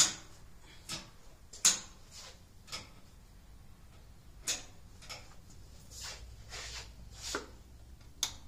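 Scattered sharp clicks and knocks, about a dozen at irregular intervals, from a stationary edge belt sander being handled at its table and switch box while its motor is not running.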